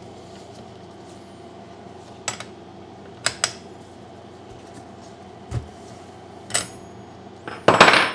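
A spark plug wrench working a spark plug out of a chainsaw's cylinder head: a few light metallic clicks and clinks of the tool, then a louder clatter near the end. A steady low hum runs underneath.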